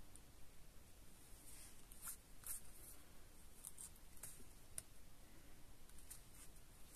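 Near silence, with faint scattered rustles and light ticks from small paper pieces and a liquid glue bottle being handled on a craft mat.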